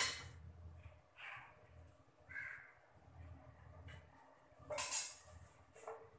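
Crows cawing several times in short calls spread over a few seconds. A sharp clink at the start comes from the ladle against the aluminium cooking pot.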